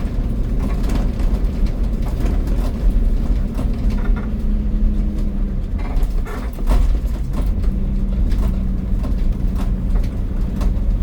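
Ford Econoline van running: a steady low engine rumble, its hum coming up twice, with scattered knocks and rattles throughout.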